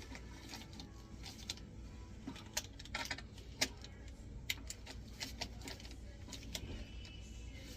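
Light metallic clinks and clicks of small metal parts and tools being handled while garbage disposal mounting hardware is fitted, scattered and irregular, with one sharper click about three and a half seconds in, over a low steady hum.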